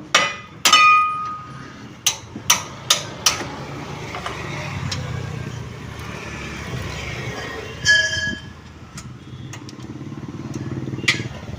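Metal tools and brake parts clinking and ringing during rear brake caliper removal. There are two ringing clanks at the start and a quick run of four sharp knocks, then a steady low rattling run of several seconds with one more ringing clank partway through.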